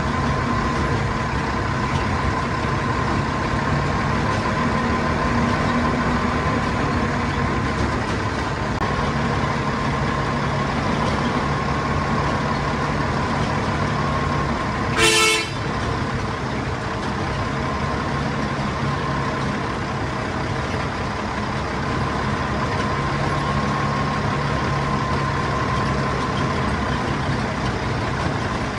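Hokuriku Juki Kogyo narrow-gauge diesel locomotive's engine running steadily while under way, with one short toot of a horn about halfway through.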